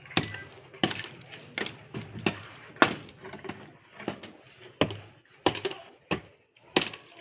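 Repeated sharp strikes of a hand tool on hard building material, about a dozen, evenly spaced at roughly one every two-thirds of a second.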